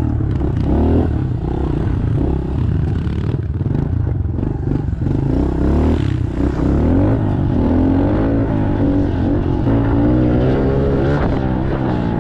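Pit bike engine being ridden, revving up and easing off again and again as the throttle is worked, the pitch climbing and falling several times.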